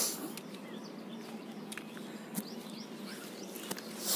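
Background ambience of faint bird chirps over a low steady hum, with a short burst of rushing noise at the start and another near the end.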